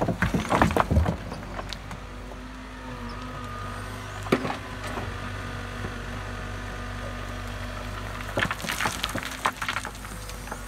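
Mini excavator's diesel engine running steadily while the machine works rocky ground, with bursts of knocking and clatter at the start, once around four seconds in, and again near the end.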